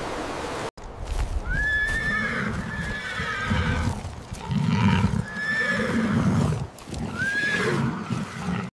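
Horses whinnying several times, each call rising and then holding, with lower animal sounds in between.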